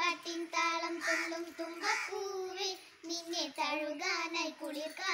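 Two young girls singing an Onam song together, unaccompanied.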